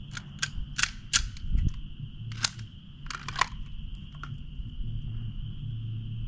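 Gunshots: about eight sharp reports at uneven spacing, most in the first three and a half seconds, over a steady high-pitched hum.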